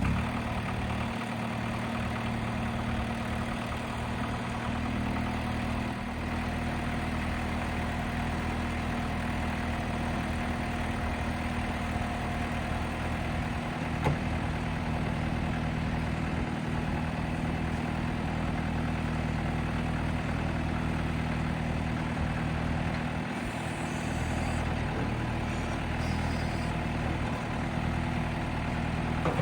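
Case D40 tractor engine idling steadily, a few moments after starting. A single short tick about halfway through.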